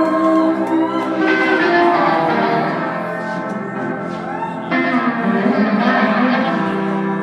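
A rock band playing live through a PA system, with electric guitar prominent in a full, sustained band sound.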